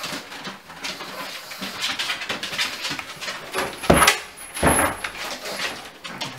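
Two pugs playing over a toilet roll on a tiled floor: scuffling and rustling throughout, with two louder dog sounds about four seconds in and again half a second later.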